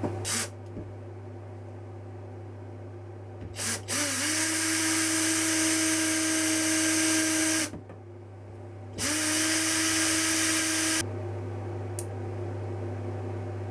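Small electric drill running in two bursts, about four seconds and then about two seconds, its whine rising quickly to a steady pitch each time as it drills into 3D-printed plastic.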